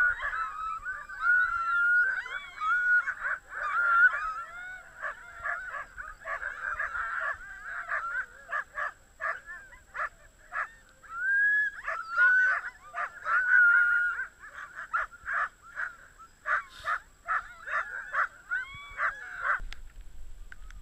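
A team of Greenland sled dogs barking and yelping together, many overlapping high calls. They stop abruptly near the end.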